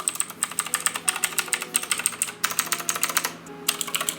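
Rapid typing on a Redragon K552 mechanical keyboard with Outemu blue switches: a dense run of clicky keystrokes, with a short pause about three and a half seconds in.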